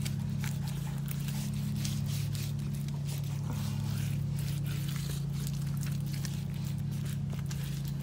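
Wet Ultracal 30 gypsum cement being dabbed on as a mold's beauty coat: a quick, irregular string of short, soft dabs and smears, over a steady low hum.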